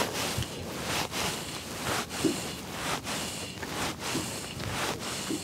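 Sinking fly line being stripped in by hand through the rod rings in steady pulls, a short rasping swish about twice a second.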